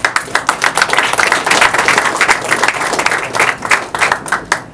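Audience applauding: many hands clapping, fast and dense, dying away near the end.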